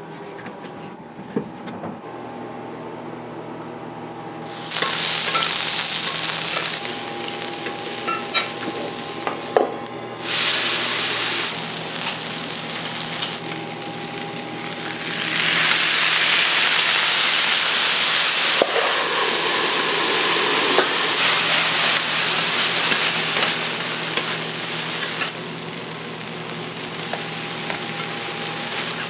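Food sizzling on a hot iron teppan griddle, starting about five seconds in and swelling and easing in several stretches. Before that, a few light knife taps on a cutting board.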